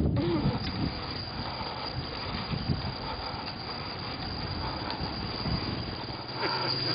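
Steady wind and road noise from riding a bicycle along a road. A low steady hum comes in near the end.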